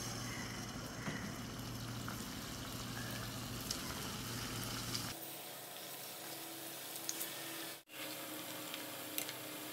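Mashed banana cylinders deep-frying in hot oil in a pan, a steady sizzle and bubbling with a few light clicks. The sound changes abruptly about five seconds in and drops out for an instant about eight seconds in.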